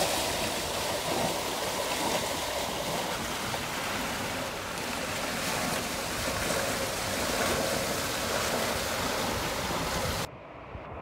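Wind and rushing water on a sailing yacht moving fast under sail: a steady, full hiss. Near the end it cuts suddenly to a quieter, duller rush.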